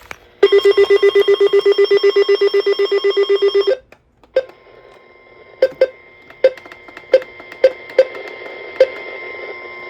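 Emergency alert receiver's electronic alarm: a loud, rapidly pulsing beeping for about three seconds, then stopping. After it come a series of sharp, irregular clicks over a faint steady tone.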